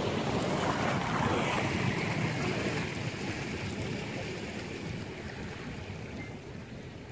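Steady rush of wind and water from a moving motor launch on a river, with wind buffeting the microphone. It fades gradually over the seconds.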